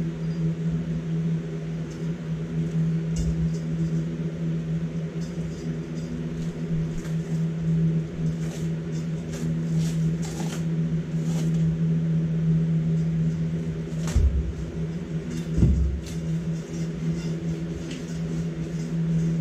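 A steady low machine hum, with scattered light clicks and taps and a few dull thumps, about three seconds in and twice near fourteen to sixteen seconds in.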